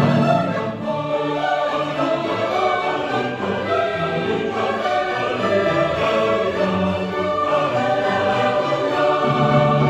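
Mixed choir singing with a symphony orchestra accompanying, sustained and continuous.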